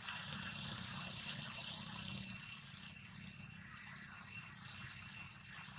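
Steady outdoor background noise: an even hiss with a faint high-pitched whine and a low hum underneath, with no distinct event standing out.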